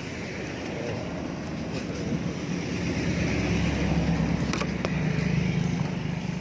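A motor running with a steady low hum that builds up over the first few seconds and then holds steady.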